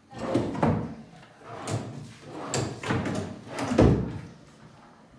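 Dressing-table drawers, lid and cabinet doors being opened and shut by hand: a string of knocks and clunks, the loudest a deep thump about four seconds in.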